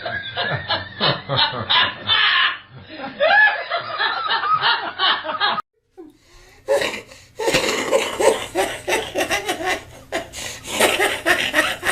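People laughing hard in quick repeated bursts. The laughter breaks off a little past halfway with a second of near silence, then a different, brighter-sounding bout of laughter follows.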